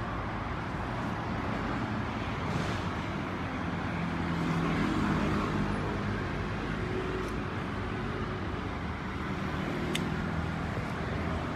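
BMW F30 sitting with its engine running while the windshield wipers sweep the washer-wet glass over and over. The new silicone wiper refills glide smoothly without chattering or skipping.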